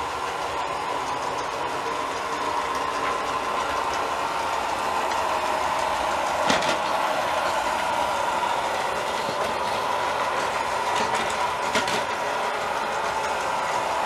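Robot vacuum cleaner running across a wooden floor: a steady whirring hum from its motor and brushes, growing a little louder as it comes closer. Two short sharp knocks sound, about six and a half seconds in and again near twelve seconds.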